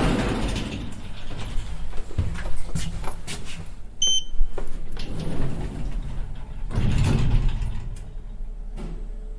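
Elevator doors sliding and clunking, with a short high ding about four seconds in, then the doors sliding again about seven seconds in.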